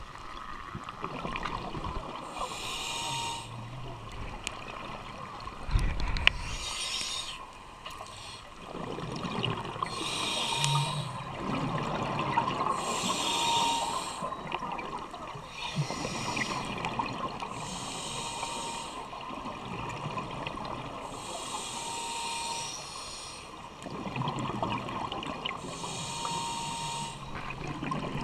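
Scuba regulator breathing heard underwater: a hiss with each breath through the regulator, repeating every few seconds, over a rushing of exhaled bubbles. A short thud about six seconds in.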